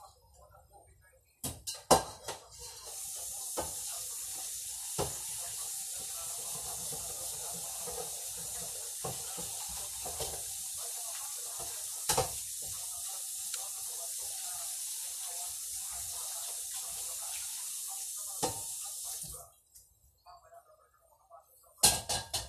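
Kitchen tap turned on and running steadily for about sixteen seconds, then shut off. A few knocks and clinks of cookware come just before it, while it runs, and in a clatter near the end.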